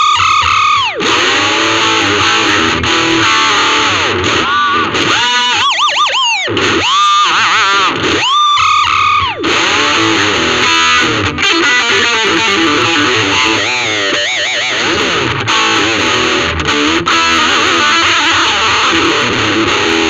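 Ibanez RG350DX electric guitar played through a VOX Soundbox Mini amp: fast picked lead lines, with notes swooping down and back up in pitch several times in the first half.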